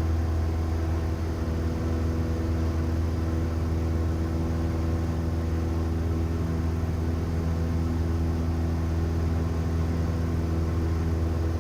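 Cessna 172M's four-cylinder piston engine and propeller droning steadily in cruise, heard from inside the cabin.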